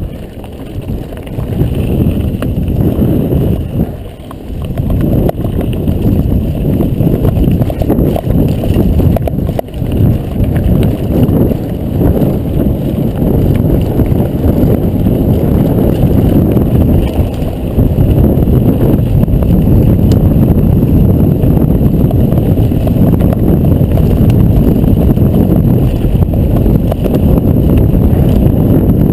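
Wind buffeting an action camera's microphone as a mountain bike rides a gravel dirt track, with the tyres crunching over stones and the bike rattling. The rumble dips briefly near the start and again about four seconds in.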